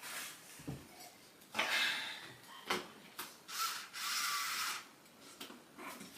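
A handful of short rubbing and scraping sounds of objects being handled and slid against each other, the longest lasting most of a second a little past the middle.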